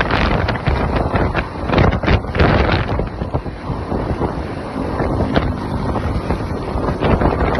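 Heavy wind buffeting on the microphone over the rumble of road vehicle noise, steady and loud, with no horn tune heard.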